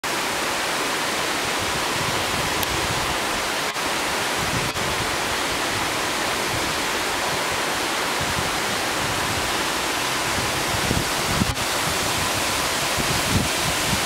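A tall, narrow waterfall plunging down a rock cliff, heard from close to its base: a steady, even rush of falling and splashing water.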